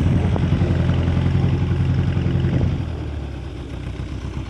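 Ursus C-4011 tractor's diesel engine running steadily as the tractor drives off, its sound dropping noticeably quieter a little over halfway through as it moves away.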